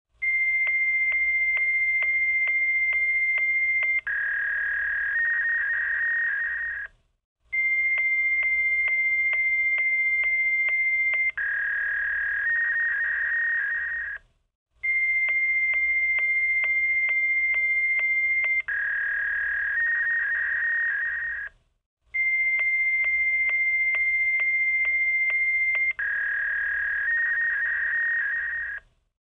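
Fax machine handshake tones, repeated in a loop. Each round is a steady high answer tone with regular clicks for about four seconds, then a lower warbling two-tone signal for about three seconds, then a brief gap. The round plays four times.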